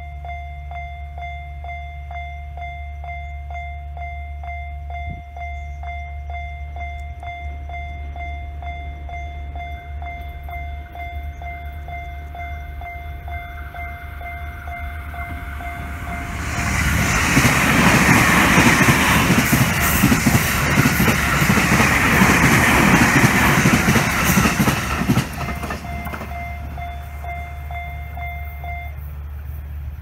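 Japanese level-crossing warning bell ringing in a steady, rapid repeated ding. About halfway through, a train passes through the crossing for roughly nine seconds, and its loud rumble and wheel noise drown the bell. The bell rings on for a few seconds afterwards and stops shortly before the end, as the barriers begin to lift.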